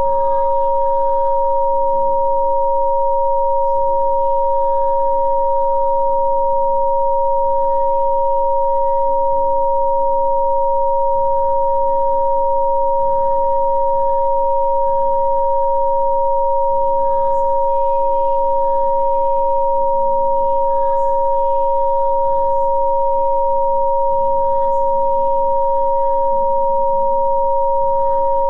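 Two electronically generated pure sine tones, a lower and a higher one, held perfectly steady as a Rife frequency-therapy signal, over a far fainter shifting ambient background.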